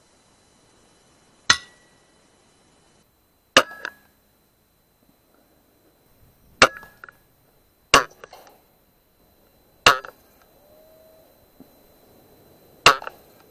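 Six shots from a sub-12 ft-lb air rifle, each a sharp crack at uneven spacing, several followed closely by a quieter knock.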